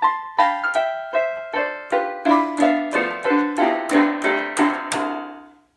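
A child playing an electronic keyboard with both hands, striking notes at about three a second, often several together, with the last note fading away near the end.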